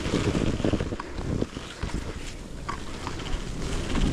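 Wind buffeting the microphone while moving along a snowy trail: an uneven low rumble, with a few faint brief knocks.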